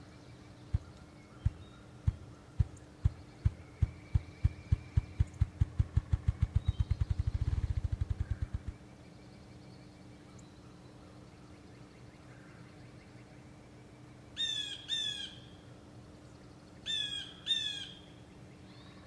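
Male ruffed grouse drumming with its wings: low, deep thumps that start slow and speed up into a fast whir, stopping about nine seconds in. Later another bird gives short calls in pairs, twice.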